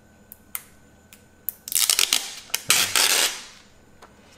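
Thin plastic factory screen protector being peeled off a smartphone's glass screen: a few small clicks, then about a second and a half of loud crackling as the film comes away.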